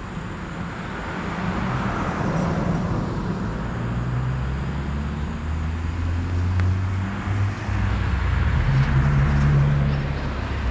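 Motorcycle engine running at low speed as the bike moves around, growing louder over the first few seconds, with its note shifting up and down a few times.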